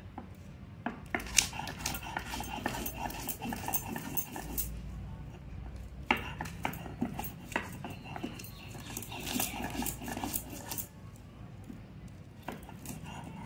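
A stone pestle crushes and grinds green chillies with salt on a sil grinding stone, giving irregular sharp knocks over a rough scraping. A thin whining tone comes and goes twice.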